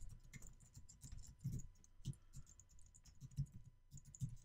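Typing on a computer keyboard: a faint, irregular run of keystrokes as a web address is typed.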